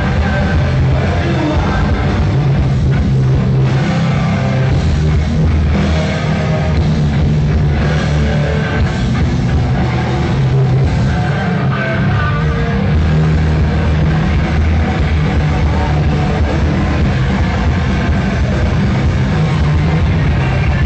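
A rock band playing loud and live, electric guitars over a full band, with no break in the music.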